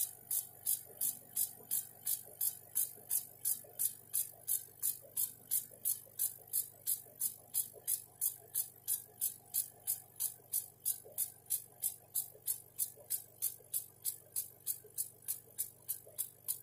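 CO2 laser engraver's head rastering back and forth across an oak board, giving a short swishing tick at each stroke, about three a second, over a steady low hum.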